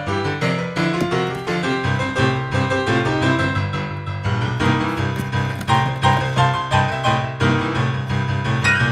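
Background piano music, a busy melody of quick notes over a steady low bass.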